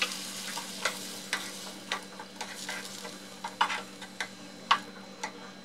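A utensil scraping and clicking irregularly against a frying pan as tomato wedges and shallots are stirred in freshly added water, with a light sizzle from the pan and a faint steady hum underneath.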